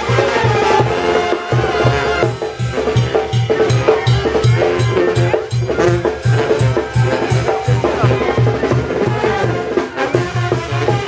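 Live Oaxacan brass band playing a dance tune, horns over a steady bass beat.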